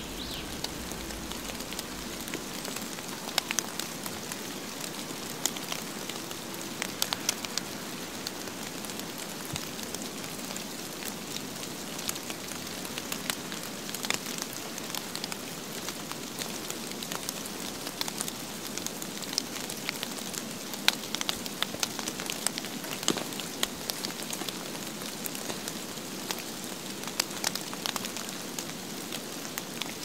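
Falling snow pattering on dry grass and branches: a steady soft hiss dotted with many small, scattered ticks.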